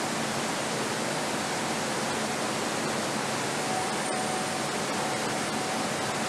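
Steady, even hiss of factory background noise on a vehicle assembly line, with a faint thin whine joining about halfway through.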